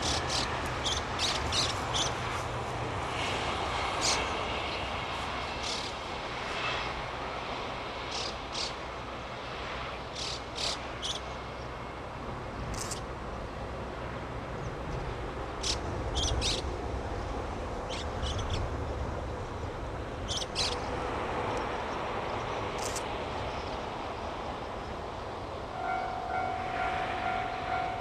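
Small birds chirping in short scattered bursts over a steady low hum from the railway. About two seconds before the end, a steady tone with several pitches starts up.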